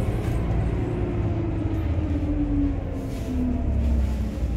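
City bus running, heard from inside the cabin: a steady low engine and road rumble with a faint whine that slowly falls in pitch.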